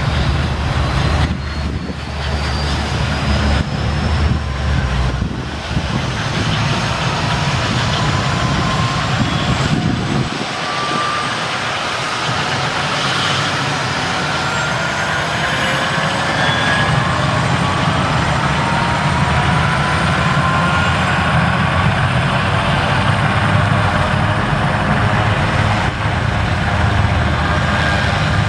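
Super Puma helicopter running on the ground, rotors turning, with a steady low rotor rumble and a turbine whine that slowly rises in pitch through the middle.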